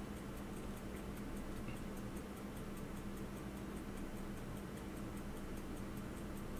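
Faint, rapid, even ticking of a mechanical watch, about five ticks a second, over a low steady hum.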